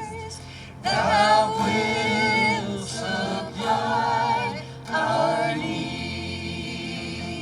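Gospel singing by several voices, in sung phrases over a steady instrumental backing.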